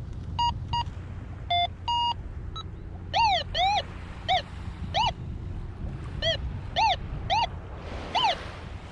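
Garrett Pro-Pointer pinpointer beeping: a few short steady beeps, then a run of about eight quick rising-and-falling chirps. The pinpointer is acting up, and the owner suspects salt water.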